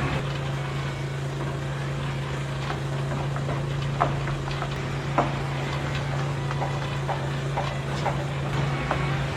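Small DC motor of a DIY model vehicle running with a steady low hum, with scattered light clicks and knocks from its plastic parts.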